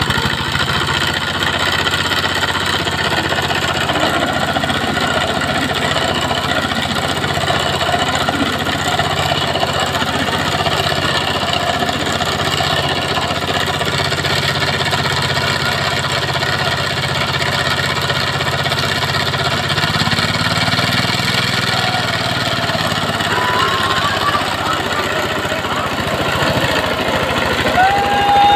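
Single-cylinder diesel power tiller running steadily and working hard under load, pulling a loaded trolley through mud.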